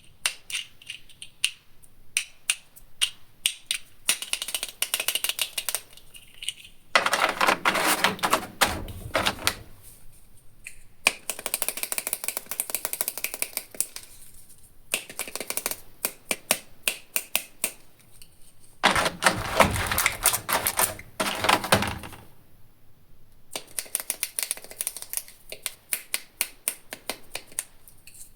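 Toy packaging being handled and opened: many quick plastic clicks and taps, with several longer stretches of crinkling or tearing, the loudest about seven to eleven seconds in and around twenty seconds in.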